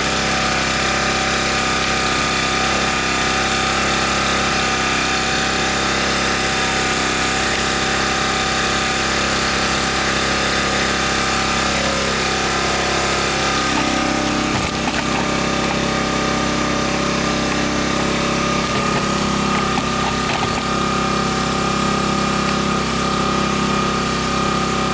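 Parkside PGI 1200 B2 inverter generator's small four-stroke engine running at a steady speed under a light load, a small transformer. A few faint clicks come about midway.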